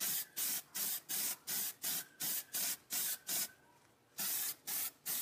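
Aerosol spray-paint can sprayed in quick, even short bursts, about three a second, with a brief pause after about three and a half seconds before the bursts resume.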